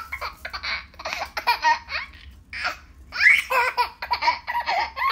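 A baby laughing in repeated bursts of giggles and laughs.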